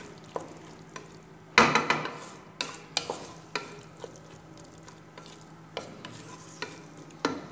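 A wooden spatula stirring green peas frying in masala in a karahi, knocking and scraping against the pan several times, loudest about one and a half seconds in, over a light sizzle.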